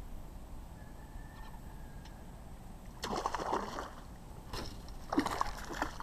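A hooked bass thrashing at the water's surface: splashes about three seconds in and again about five seconds in.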